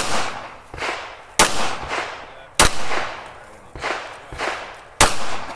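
Four pistol shots fired at a steady, deliberate pace, one about every second and a half, with a longer gap before the last. Each is a sharp crack followed by a trailing echo.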